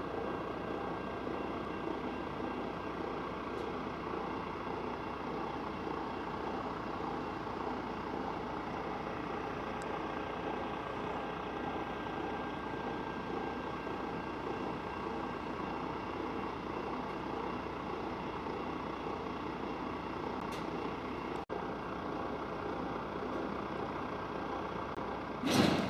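Diesel locomotive engines running with a steady drone and held tones, with a momentary dropout about three-quarters of the way through and a short loud burst just before the end.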